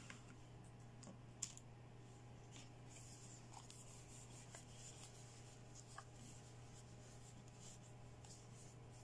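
Faint handling of small plastic toy accessories: soft rubbing and a few light clicks, the sharpest about one and a half seconds in, over a steady low hum.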